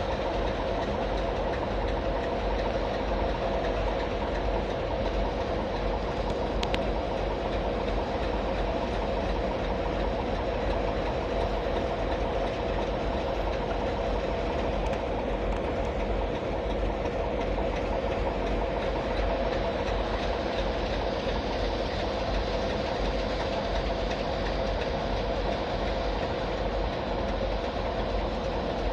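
Diesel locomotive engine running steadily at idle: an unbroken low rumble with a steady droning hum.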